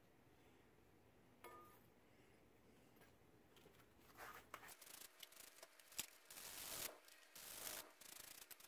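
Near silence at first, then faint irregular rustling and rubbing of paper shop towels as a knife blade is handled and wiped on them, with a sharp click about six seconds in.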